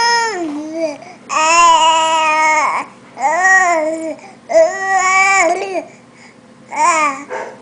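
Baby vocalizing loudly between spoonfuls of food: a series of about five drawn-out, pitched 'aah' sounds, most about a second long with short pauses between.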